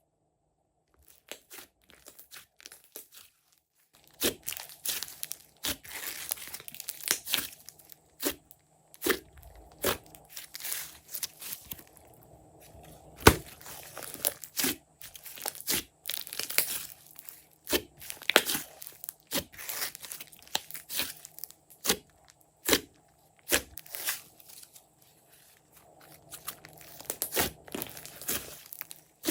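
Hands squishing and stretching glossy slime: a run of sticky clicks, pops and crackles. It starts faint and thickens after about four seconds, with one sharp pop in the middle.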